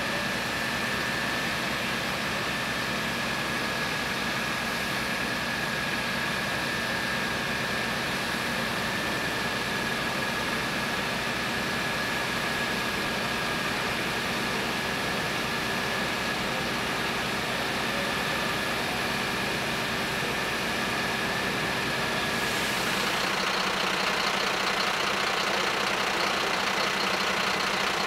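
Fire engine's diesel engine running steadily at idle, a low drone with a constant high whine over it. A little over twenty seconds in, the low drone and whine drop away and a louder hiss takes over.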